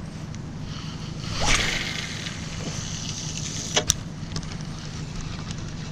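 A fishing rod being cast: a whoosh about a second and a half in, then line hissing off the reel, ending in two sharp clicks near four seconds. A steady low hum runs underneath.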